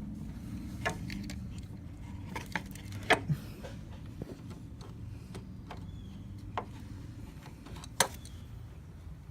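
A few scattered metallic clicks and taps of pliers working at a radiator hose clamp, the sharpest about three seconds in and near the end, over a low steady hum.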